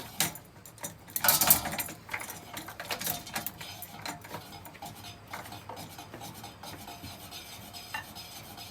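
A battered, running ceiling fan clattering: a few sharp metallic knocks in the first couple of seconds, then a lighter, steady rattle and clink of loose broken parts as it keeps turning.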